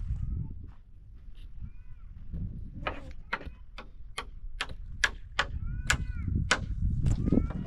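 A run of sharp knocks in an even rhythm, about two and a half a second, starting about three seconds in, over a low rumble.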